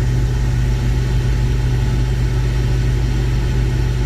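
Combine harvester's engine running steadily, an unchanging low drone.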